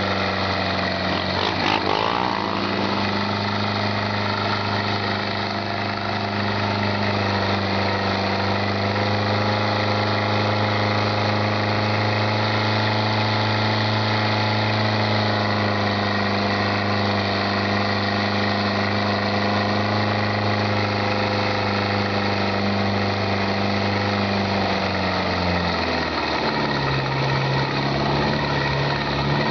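Engine of an open safari jeep running steadily, heard from the rear passenger bench, with road and wind rush. Near the end the engine note drops lower. Early on a passing motorbike briefly rises and falls in pitch.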